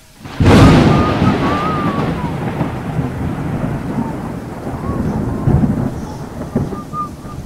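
A loud low rumble with a steady hiss over it, starting suddenly about half a second in and then rising and falling. Short wavering whistles sound faintly above it.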